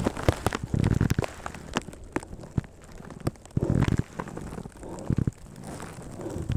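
Clicks, knocks and rustling from a person moving on foot with their kit, with a few short low rumbles about a second in and again around four seconds.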